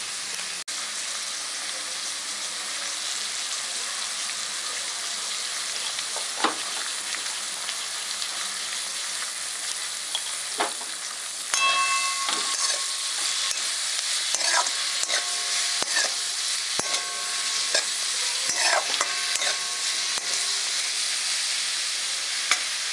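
Cabbage, potato and peas sizzling in a metal wok with a steady hiss. From about halfway through, a metal spatula stirs and scrapes the pan, its clinks ringing briefly.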